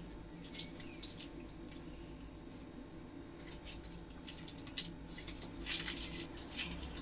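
Light scraping, tapping and the odd faint squeak of a spoon spreading tomato sauce over pizza dough, growing busier in the last couple of seconds.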